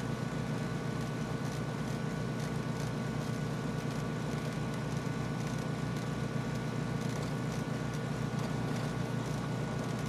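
Cessna 310Q's two Continental six-cylinder piston engines idling steadily, heard inside the cockpit, with a regular low throb.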